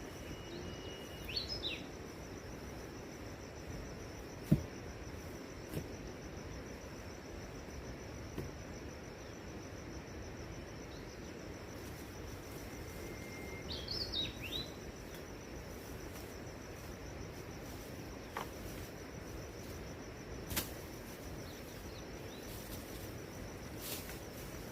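Forest ambience: a steady hiss with a thin, constant high insect drone. A bird calls twice with short chirps, about a second in and again midway. A single sharp knock about four and a half seconds in is the loudest sound, with a few fainter clicks later.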